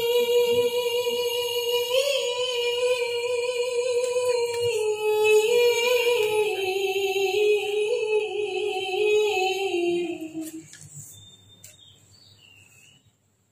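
A woman reciting the Quran in the melodic tilawah style, holding one long ornamented note that wavers slightly and slowly steps down in pitch, then fades out about ten seconds in.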